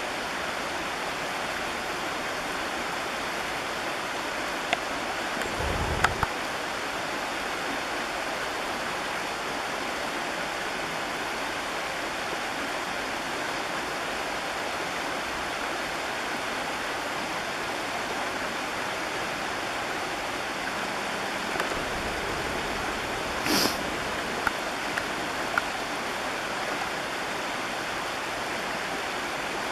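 Steady rush of a small creek's flowing water, broken by a few short knocks and a low thump about six seconds in, and a brief hiss and more knocks about three-quarters of the way through.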